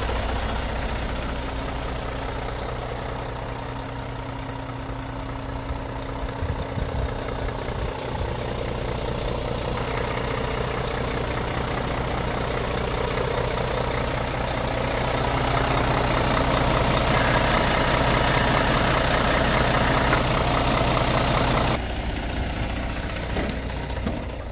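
Scania R500 truck's 13-litre inline-six diesel idling steadily. Near the end the sound drops suddenly and turns duller, heard from inside the cab.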